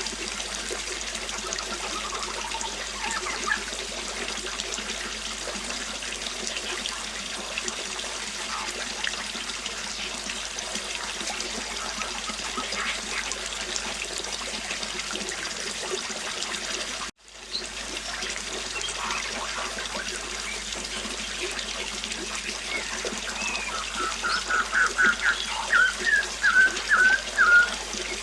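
A river flowing and burbling steadily, with small birds chirping now and then. The sound cuts out for a moment about two-thirds of the way in. Near the end a bird gives a quick run of repeated chirps, the loudest thing heard.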